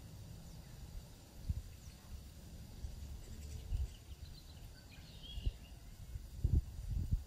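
Birds chirping faintly now and then, in short high calls, over low rumbling thumps that are loudest near the end.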